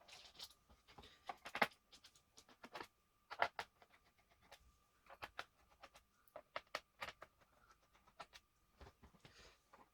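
Small irregular clicks and taps from hands working on a laptop: plastic and metal parts being handled, a few sharper knocks about one and a half and three and a half seconds in.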